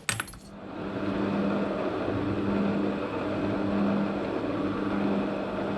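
Metal lathe running with a steady hum during a final thread-cutting pass. It comes up to speed about a second in and winds down near the end.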